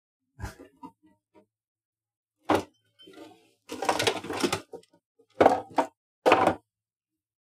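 A series of separate knocks and clatters as a kitchen cupboard door is opened and things are handled on the counter and inside the cupboard, with the longest clatter about four seconds in.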